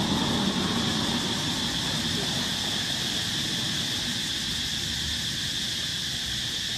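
Steady outdoor ambience dominated by a continuous high-pitched insect drone over a broad hiss, with a low rumble that fades away during the first two seconds.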